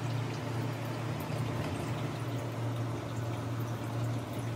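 Rice cooking in stock in a lidded pan on a gas stove: a faint bubbling with small pops over a steady low hum.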